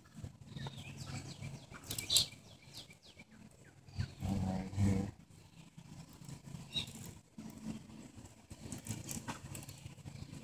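Loose chainsaw chain clinking as its links are handled and fed around the bar, with sharp clicks about two seconds in and again near the end. An animal's low voice sounds in the background, loudest about four to five seconds in.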